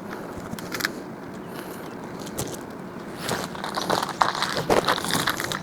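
Handling of packaging and small parts while unpacking: scattered clicks and knocks with crackling, rustling packing material, busiest in the second half.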